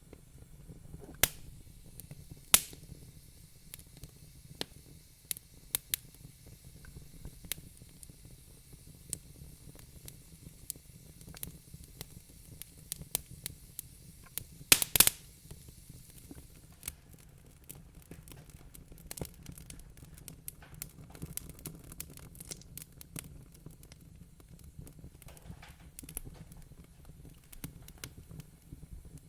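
Wood fire crackling in a fireplace: scattered sharp pops and snaps over a low steady rumble. Loud single pops come a little over a second and two and a half seconds in, and a quick cluster of the loudest pops comes about halfway through.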